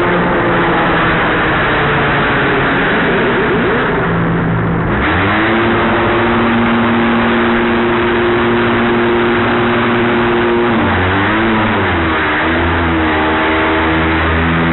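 Ferrari Formula 1 car's V8 engine running at steady revs in the pit box, its pitch holding level for several seconds, then wavering and climbing near the end as the car pulls away.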